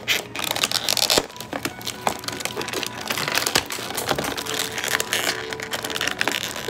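Crinkly packaging, such as a plastic or foil wrapper, being handled and crumpled, with dense irregular crackling throughout. Faint music plays underneath.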